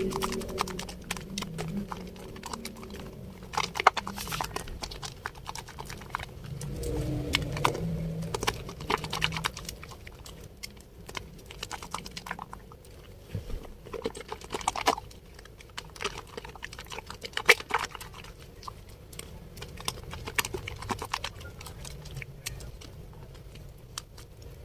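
Bar of Dettol soap being lathered with water, giving wet squishing and irregular crackling clicks of foam.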